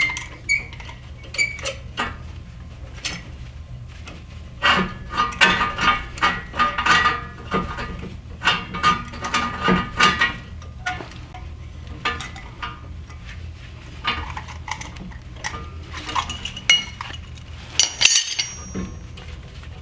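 Metal brake hardware being handled, clinking and clanking with short ringing knocks, during a front brake pad change. The clinks come thickest from about five to ten seconds in, with another sharp clank near the end.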